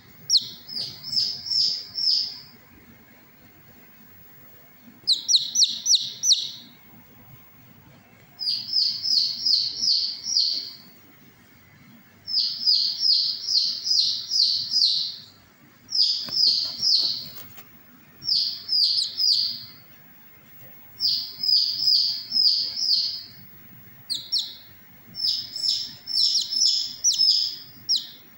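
A domestic chicken chick peeping loudly in runs of four to eight high calls, each peep falling slightly in pitch, with pauses of a second or two between runs.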